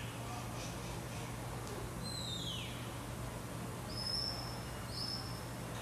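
Stockdog handler's whistle commands to a working cow dog: one long whistle sliding down in pitch about two seconds in, then two short, high, steady whistles near the end, over a low steady hum.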